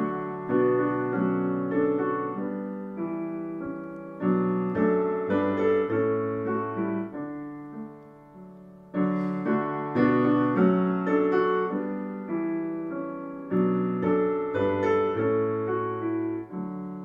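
A piano playing a slow hymn tune in full chords as the introduction to the hymn. It plays in two phrases, each fading away at its end.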